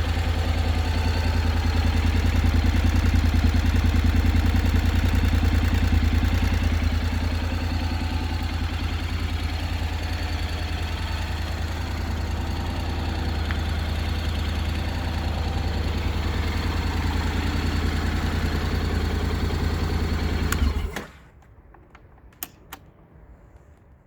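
Honda X-ADV 750's parallel-twin engine idling through a Scorpion Red Power exhaust with its dB killer fitted, a steady low note. It stops abruptly about 21 seconds in, leaving a few faint clicks.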